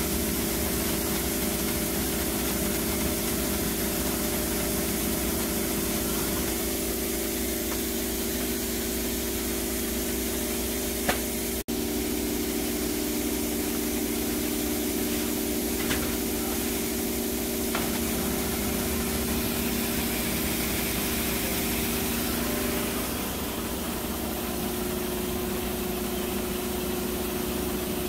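Veneer stitching machine running with a steady hum as it joins veneer sheets with a zigzag glue thread. The sound breaks off for an instant a little before halfway, and its pitch shifts slightly near the end.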